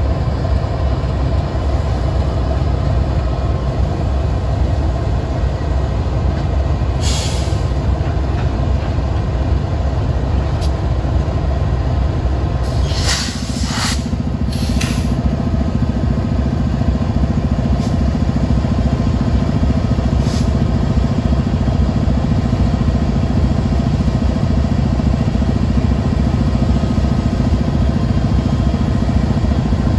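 Norfolk Southern diesel locomotives running as they pull slowly past, a steady heavy engine rumble whose low note shifts about halfway through as the next unit comes by. A few short hisses break in around the middle.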